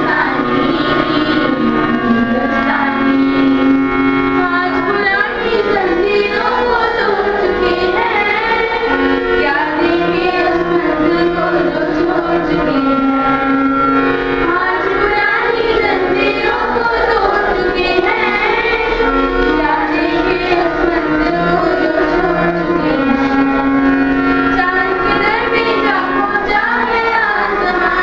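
Children singing a song together over sustained instrumental accompaniment.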